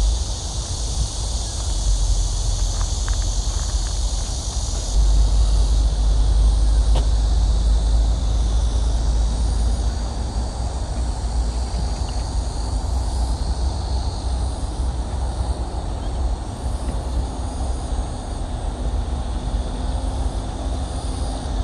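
Outdoor park ambience: a low rumble that swells about five seconds in and eases off around ten seconds, under a steady high hiss.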